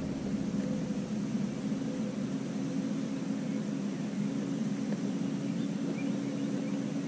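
Steady motor hum with a few constant low tones over an even hiss, unchanging throughout.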